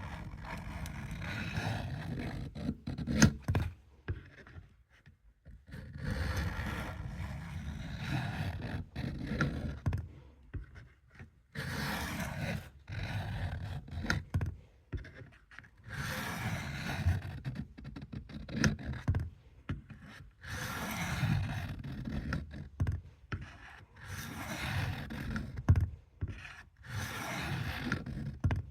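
Steel knife blade scraping back and forth across a wet fine-grit sharpening stone, in runs of strokes lasting a few seconds with short pauses between, and an occasional sharp knock.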